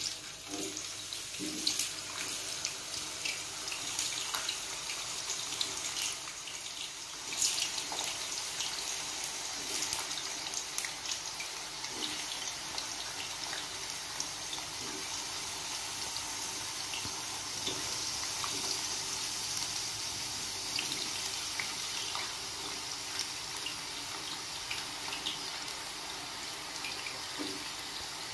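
Battered cassava sticks deep-frying in hot oil in a stainless steel frying pan: a steady sizzle with many sharp crackles, strongest in the first several seconds as the pieces go in.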